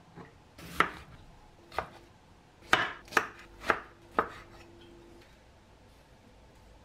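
Kitchen knife chopping pancetta into chunks on a wooden cutting board: six sharp chops over the first four and a half seconds, each blade stroke ending in a knock on the board.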